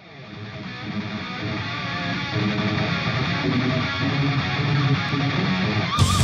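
Background music with strummed guitar, fading in over the first second or two; a brighter, fuller passage starts just before the end.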